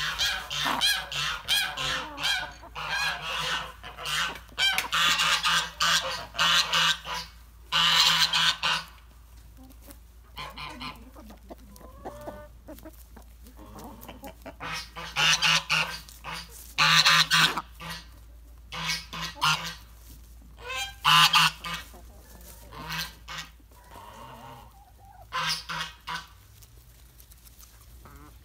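A flock of domestic fowl calling loudly, a busy run of overlapping calls for the first several seconds, then calls in scattered bunches with quieter gaps between.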